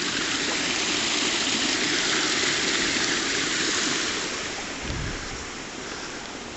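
Small fast-flowing mountain stream in spate, its water rushing steadily over stones, fading a little over the last two seconds. A brief dull low thump about five seconds in.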